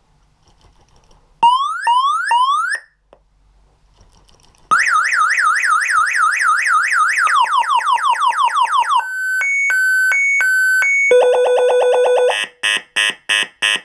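Motorised bicycle's electronic alarm going off: three quick rising chirps as a warning about a second and a half in. About five seconds in, the full siren starts, cycling through fast rising whoops, falling sweeps, a two-tone beep, a steady warble and rapid pulsing beeps.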